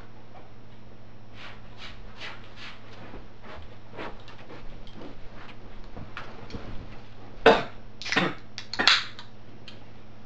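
Footsteps crossing a room, then three louder thumps with rustling as a person drops onto and settles into a fabric couch, over a steady low electrical hum.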